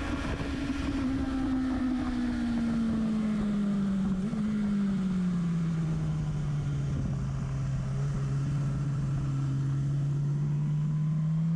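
Sport motorcycle engine heard close to its exhaust silencer, its note falling slowly over the first several seconds as the revs drop, holding low and steady, then beginning to rise again near the end. Wind rush runs underneath.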